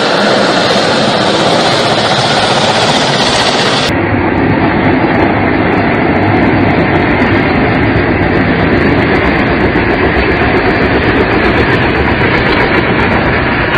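Mil Mi-17 helicopter flying low and descending to land, its twin turbines and main rotor making a loud, steady rushing noise with a rhythmic rotor beat.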